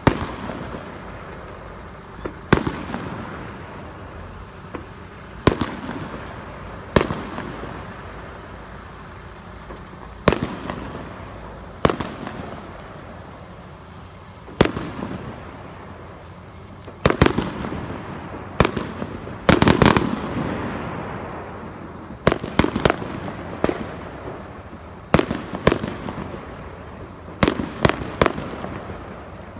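Aerial firework shells bursting overhead: a sharp bang every one to three seconds, each trailing off in a crackle and echo. The bangs come thick together about two-thirds of the way through, and again in a quicker run near the end.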